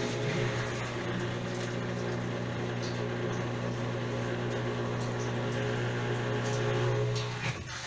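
Whirlpool washing machine running, a steady low motor hum with a hissing whir over it, which stops abruptly shortly before the end.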